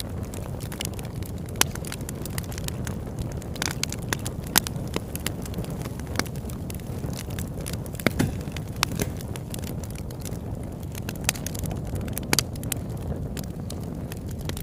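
Campfire burning: a steady low rush of flames with frequent, irregular sharp pops and crackles from the burning wood.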